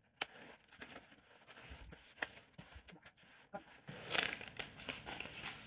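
Knife slitting the packing tape on a polystyrene shipping box: scattered small clicks and scrapes. About four seconds in comes a short rustling, scraping burst as the polystyrene lid is pulled off, and a second shorter one about a second later.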